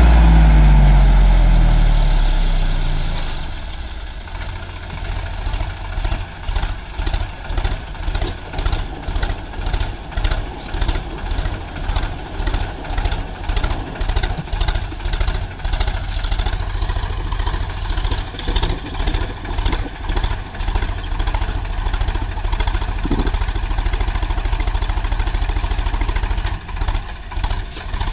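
Sonalika tractor's diesel engine revving hard while stuck in sand, its revs falling away over the first three seconds. It then runs at low revs with an even, rhythmic pulse of about one and a half beats a second.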